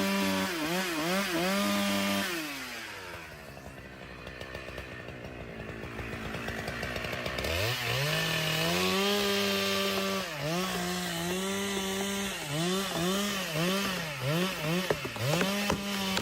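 Chainsaw running at high revs, its pitch dipping again and again as the chain bogs down under load while cutting wood. About three seconds in the engine drops away to a quieter, lower run. It revs back up about seven and a half seconds in and cuts again with the same repeated dips.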